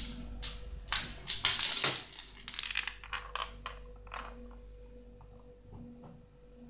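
Walnut clattering and rolling on a ceramic tile floor as a kitten bats it with its paws: a run of light clicks and taps, busiest in the first two seconds, then sparser and quieter.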